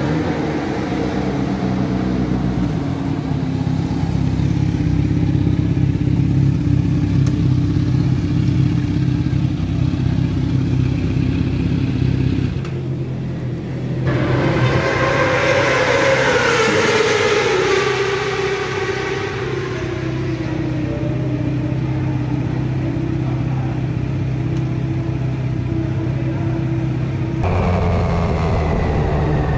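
Kawasaki Z900 inline-four motorcycle engine running at idle, steady at first. Midway it grows louder and its pitch falls slowly over several seconds. Near the end the engine note changes abruptly.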